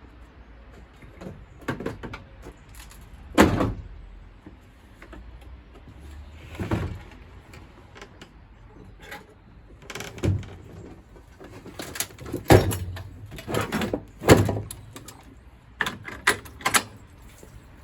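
Irregular knocks and clatter of metal parts being handled while a gas combi boiler is dismantled, about a dozen separate hits spaced unevenly.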